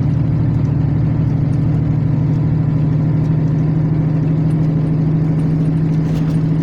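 Scania L94UB bus's diesel engine running with a steady, even drone, heard from inside the passenger cabin.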